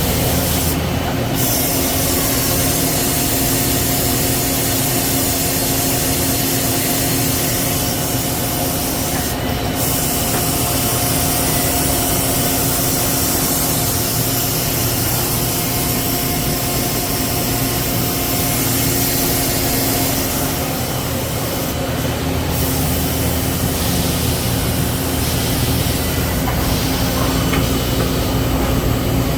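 Citizen K16E CNC Swiss-type lathe and its ancillaries running: a steady mechanical hum with a few held tones under a high hiss, the hiss briefly cutting out a few times.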